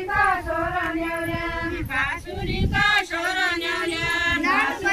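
A group of women singing a deuda folk song together, the voices drawing out long, wavering notes.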